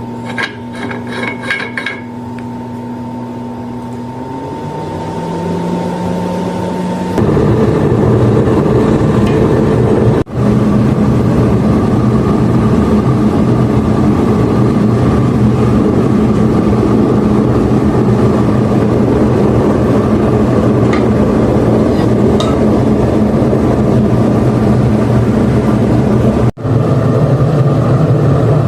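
Waste-oil forge burner and its blower running: a steady machine hum whose pitch steps up about four to five seconds in. About seven seconds in it becomes a much louder, steady rushing roar as the burner runs at full, with two very brief drops in the sound.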